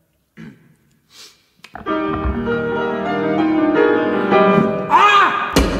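Grand piano, quiet at first with a few soft notes, then loud, full sustained chords from about two seconds in. A sudden crash comes near the end.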